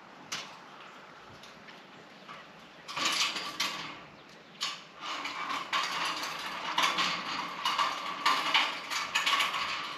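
Mechanical rattling and rapid clicking, starting about three seconds in, easing briefly, then going on more loudly to the end.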